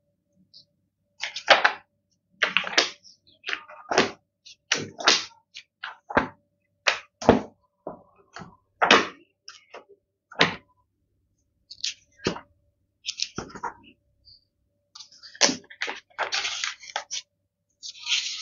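Pages of a thick hardcover medical textbook being turned one after another, each turn a short papery swish or flap. They come irregularly, roughly one a second, with a few longer gaps.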